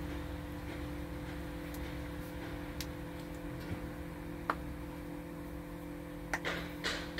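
Steady background hum under a few light clicks and taps from workers handling a split-rim truck tire, with two short hissing bursts near the end.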